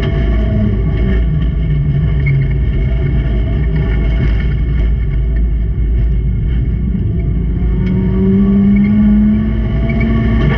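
Race car engine running hard, its pitch rising and falling with the throttle, with a louder rising rev about eight seconds in.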